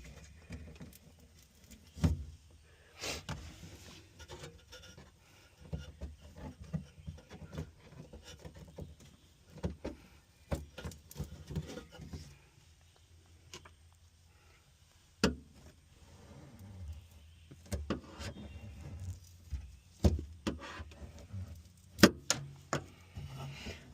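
Irregular scraping, rustling and knocking of hand work prying stubborn factory sound-deadening mat off a car's interior metal, with several sharp knocks, the loudest about 22 seconds in.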